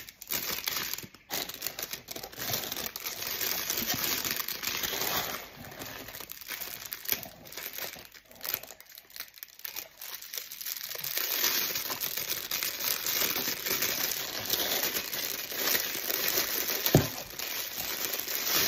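Paper bag and crinkly cellophane wrapper being handled and peeled off a wrapped treat: continuous crinkling and rustling, easing off briefly about halfway through. A single sharp click stands out near the end.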